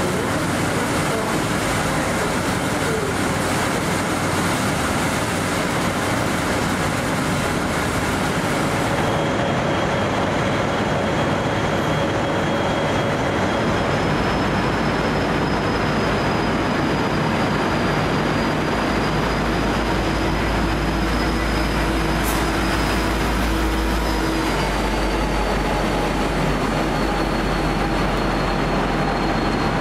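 V/Line N class diesel-electric locomotive running under a steady, loud engine noise, with high thin whines that come in partway through and shift in pitch. A deep rumble builds about two-thirds of the way through, and there is a single sharp click just after it.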